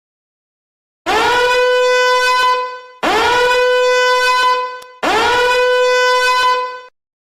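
Three loud, long horn blasts on one steady note, each lasting about two seconds and each sliding up into the note as it starts.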